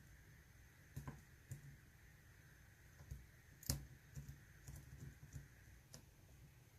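Faint, scattered clicks and light scrapes of a lock pick and tension wrench working the pins of a Mul-T-Lock Interactive dimple padlock, with one sharper click about three and a half seconds in.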